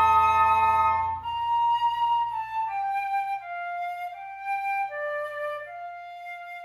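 Woodwind quintet playing: a loud sustained ensemble chord cuts off about a second in, then a solo flute carries a slow melody of held notes stepping up and down over a faint low held note.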